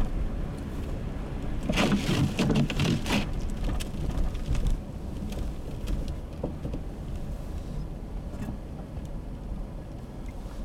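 Blizzard wind buffeting the microphone: a steady low rumble with a rushing hiss, louder for about a second and a half some two seconds in.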